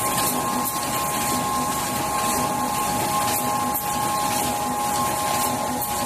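LC-416T full servo rotary tube screen printing machine running steadily: a constant whine of two steady tones over machine noise, with a faint repeating pulse about twice a second.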